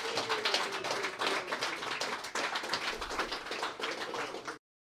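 Small audience applauding, dense and steady, cutting off suddenly near the end.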